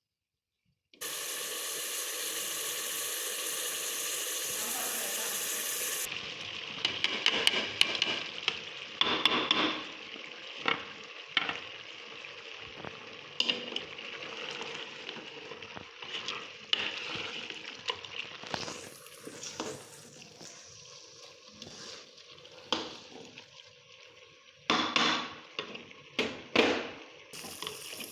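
Food sizzling in hot oil in a pan, with a loud steady hiss starting about a second in. After about six seconds it falls to a lower sizzle, broken by many irregular scrapes and knocks of a spoon or spatula stirring.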